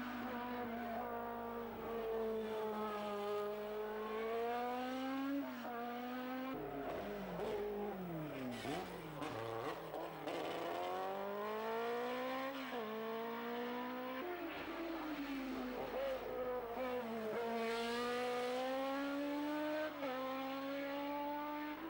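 Single-seater racing car engine revving hard as it accelerates through the gears, its pitch climbing and dropping back at each upshift. Around eight seconds in the pitch sinks low for a couple of seconds before it climbs again.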